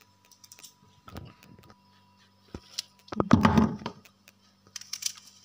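Kitchen knife working through a fresh apple, then apple pieces dropping into an empty plastic bucket, a short loud clatter about three seconds in.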